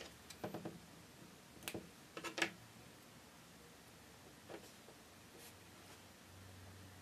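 Fingertips pinching and folding a tiny striped craft piece, giving soft crinkles and clicks in short bursts: a cluster in the first two and a half seconds and a fainter one around four and a half seconds, over a quiet room.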